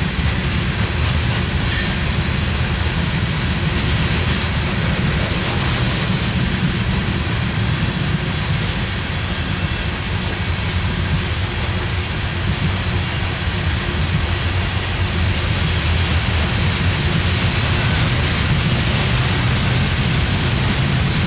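Loaded coal hopper cars rolling past at a steady speed: a continuous low rumble of steel wheels on rail.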